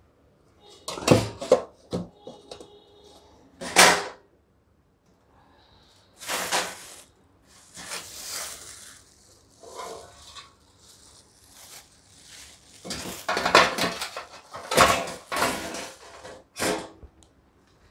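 Iron parts of a folding charcoal barbecue grill being handled: irregular metal knocks and clatter with some scraping as the legs are opened and the charcoal tray is set in place.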